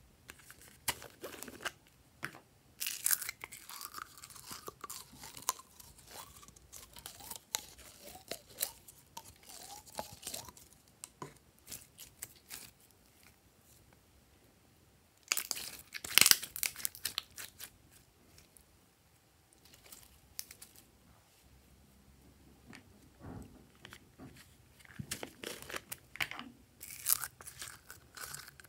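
Glossy slime squeezed out of soft plastic bottles and pressed by hand: sticky crackles and clicks in irregular bursts, with quiet pauses between, loudest a little past halfway and again near the end.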